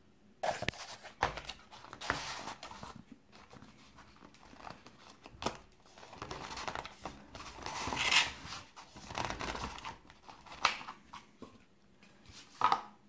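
Stiff cardboard box being handled: the inner tray is pushed and slid out of its tight-fitting sleeve with irregular scraping and rustling, and a few sharp knocks as the box is set against a wooden table.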